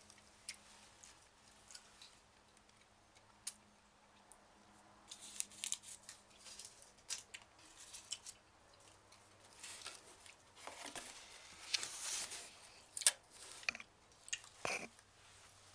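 Plastic snack packaging being handled and opened: scattered clicks, with two longer stretches of crinkling and rustling, the first about a third of the way in and the second past the middle.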